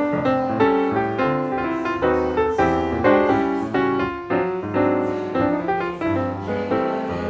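Background piano music, a steady stream of notes and chords.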